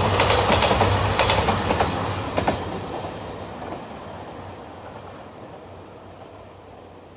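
JR Shikoku 2700 series diesel limited express train passing close by, its wheels clicking over the rail joints, then fading away steadily after about two and a half seconds as it moves off.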